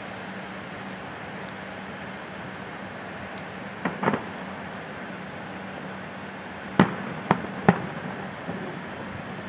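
Aerial firework shells bursting: a quick cluster of bangs about four seconds in, then three sharp reports about half a second apart near seven seconds, over a steady background hiss.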